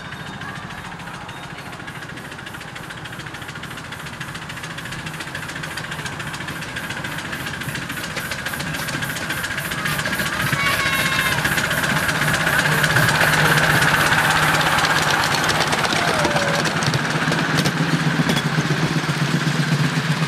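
Miniature steam locomotive hauling a passenger train past, its exhaust beating in a fast, even rhythm over the wheels running on the track. It grows louder toward the middle as the train comes closest and stays loud as the carriages roll by.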